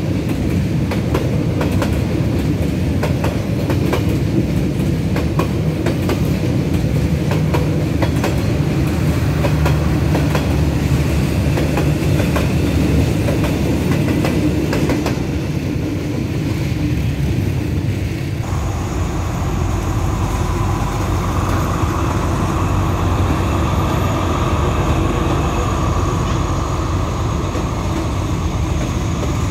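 A train passing close by, its wheels clattering over the rail joints above a low rumble. About two-thirds of the way through, a steadier, higher sound joins in and continues.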